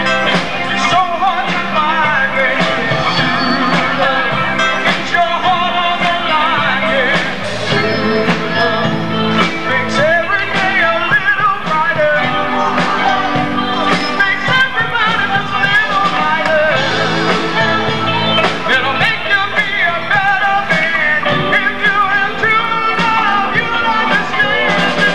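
A live band playing a rock-and-roll song with a lead singer, backed by a drum kit, electric guitar and keyboards.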